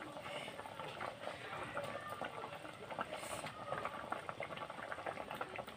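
Thin dried-hilsa and potato curry boiling in an open metal pan: a steady fine crackle of many small bubbles popping.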